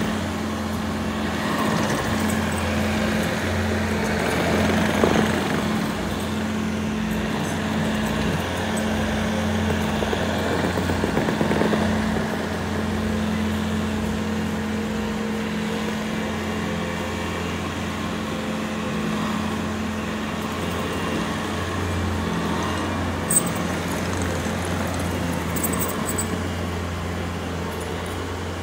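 Bobcat compact track loader's diesel engine running steadily as the machine drives on its tracks, moving and spreading loose dirt with its bucket. Two brief sharp clicks come near the end.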